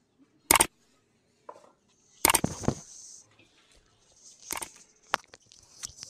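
Dry chopped wheat straw (toori) crackling and rustling as hands scoop and mix it in a steel bowl, with several sharp knocks, the loudest about half a second in and around two seconds in.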